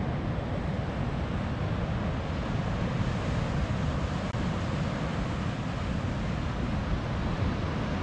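Steady wind rumbling on the microphone over the wash of ocean surf breaking on a beach.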